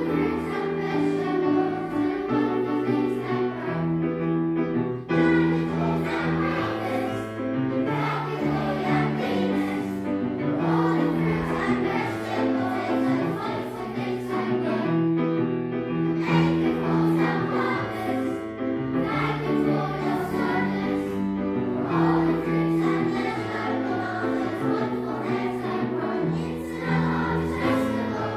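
A children's choir singing a song together, held notes moving from one to the next without a break.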